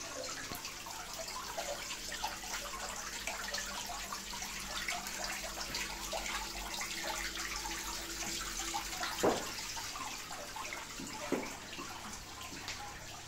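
Decorative rock-wall waterfall fountain: water trickling and splashing steadily down the rock face into the aquarium pool below, with two louder splashes about nine and eleven seconds in.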